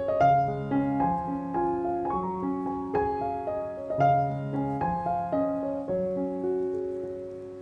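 Solo piano music laid over the video: single notes and chords struck about two or three times a second, the phrase dying away near the end.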